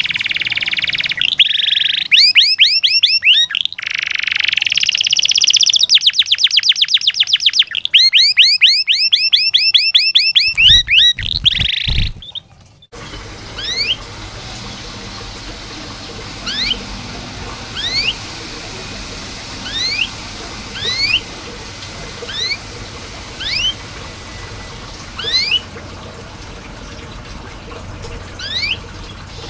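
Domestic canary singing: loud, fast trills and rolling phrases of rapidly repeated notes. About 13 seconds in they break off suddenly, followed by single rising 'cuit' chirps every second or two over a steady hiss.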